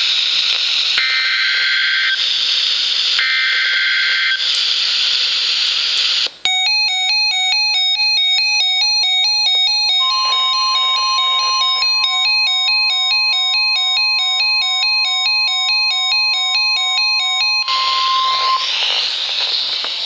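NOAA Weather Radio emergency alert over receiver hiss. It begins with three roughly one-second bursts of SAME header data tones, a rapid two-tone electronic buzz. After a brief dropout, a repeating electronic chime pattern starts, and the steady 1050 Hz warning alarm tone sounds over it for about eight seconds, signalling an incoming flash flood warning.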